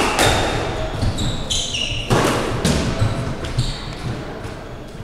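Squash ball struck hard by rackets and smacking off the court walls, two loud cracks about two seconds apart, each ringing on in the echoing court. Short high squeaks of court shoes on the wooden floor come between the shots.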